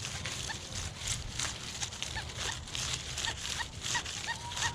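Metal detector in pitch-tone mode giving short, faint beeps about three times a second as the coil is swept over hot, mineralized soil, with the swish of each sweep. Near the end it holds a longer steady tone, the signal of a deep target.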